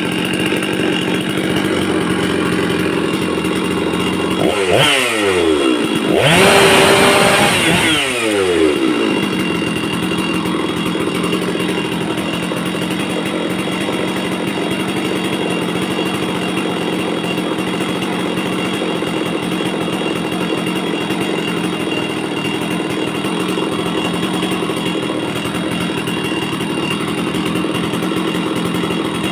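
Stihl 066 two-stroke chainsaw engine running steadily at idle, revved up twice about five and seven seconds in, the second rev longer and higher, each time dropping back to idle.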